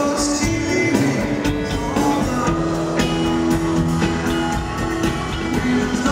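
Live rock band playing, with electric guitar leading over a drum kit.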